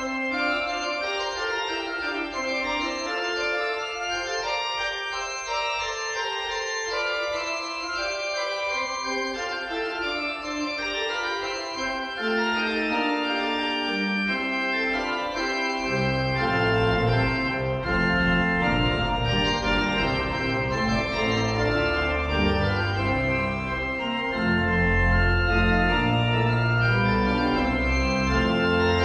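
Church organ playing a busy line of many sustained notes on the manuals. About sixteen seconds in, deep pedal bass notes join and the sound grows fuller and a little louder.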